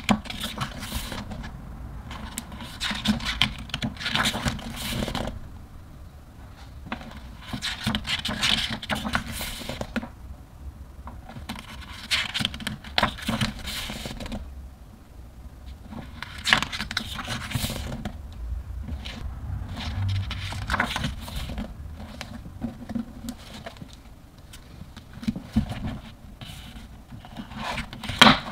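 Pages of a thick photobook being turned by hand: paper sliding and rustling against paper, with a page turned about every four seconds.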